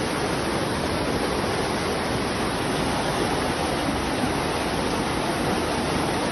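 Floodwater rushing past in a steady, unbroken torrent.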